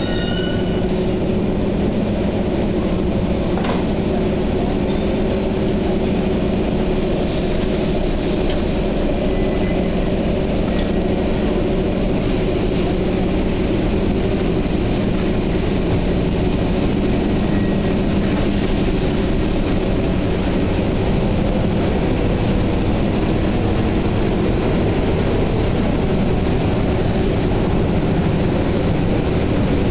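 Passenger train pulling out of a station, heard from aboard: a steady low drone from the running gear and traction, with a few faint high squeaks in the first several seconds.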